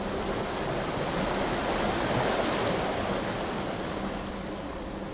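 River water rushing over rapids: a steady, turbulent rush that swells a little in the middle.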